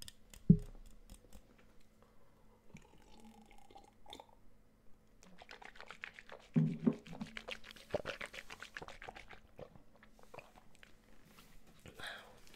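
Close-miked chewing and crunching, a dense run of small crackly clicks from the mouth, with a low thump about half a second in and another partway through.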